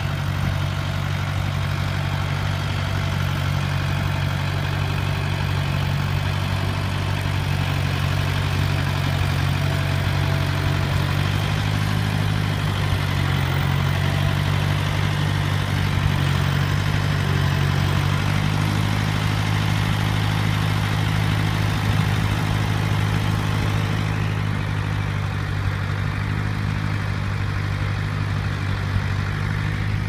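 Tractor engine running steadily close by at low revs, its note shifting slightly about halfway through.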